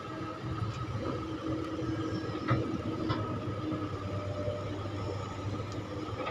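Kobelco Mark 5 excavator's diesel engine running steadily while it digs, with a couple of short metallic clanks about two and a half and three seconds in.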